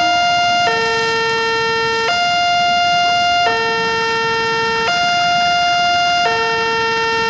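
Railway level-crossing warning alarm sounding a two-tone hi-lo signal, alternating between a higher and a lower note about every one and a half seconds: the crossing is warning of an approaching train.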